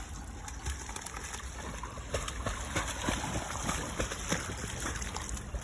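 Water sloshing and splashing, with many small irregular ticks, as a dog swims and lunges after live fish.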